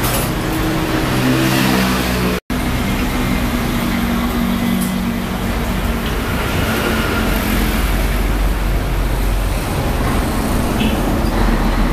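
Street traffic noise, motor vehicles running and passing with a steady engine hum. The sound cuts out for an instant about two and a half seconds in.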